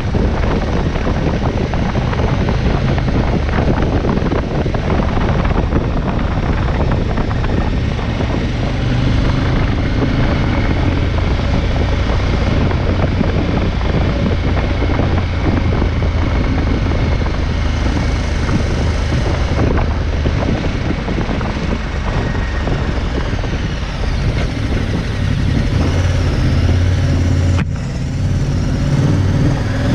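KTM 1190 Adventure's V-twin engine running at road speed, with wind noise on the microphone. The engine note shifts a few times in the last third and dips briefly near the end.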